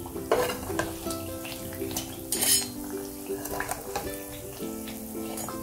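Pathiri sizzling in hot oil as they are scooped out of the pan, with a few sharp clinks of a metal utensil against the pan, the loudest about two and a half seconds in. Soft background music plays underneath.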